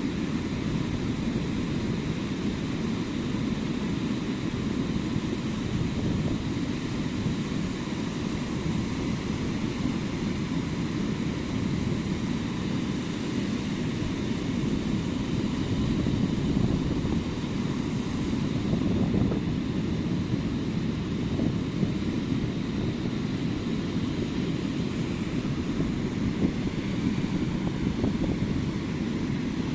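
Ocean surf breaking on a beach, heard as a steady low rumble with no distinct wave crashes standing out.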